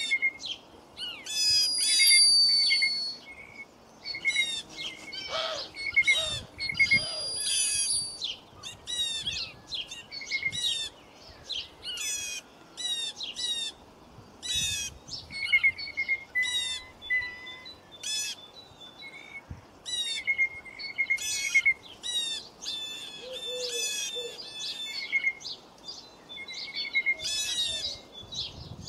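Songbirds chirping and singing without a break, a dense run of short, quick notes, with a couple of longer held whistled notes in the first few seconds.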